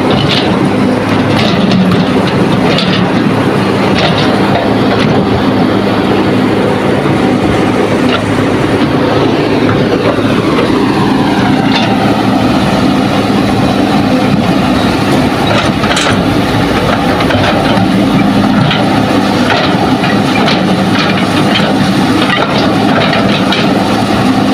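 Heavy diesel machinery running steadily: a dump truck and a Hitachi hydraulic excavator, with scattered clanks and knocks. About halfway through, a whine falls in pitch and then holds steady.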